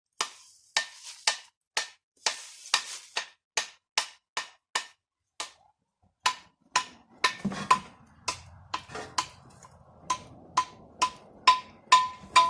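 A long run of sharp, evenly spaced metallic knocks, about two a second, broken by a short pause about six seconds in; the later strikes ring with a clear tone.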